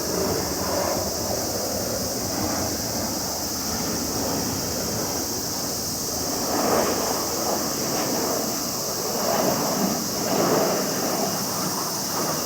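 Jet roar of an RC-135W reconnaissance aircraft's F108 turbofan engines as it lands, a continuous rushing roar that swells and fades several times.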